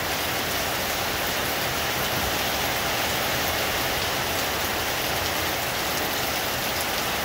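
Heavy rain falling steadily on leaves and a roof, a dense, even hiss with no let-up.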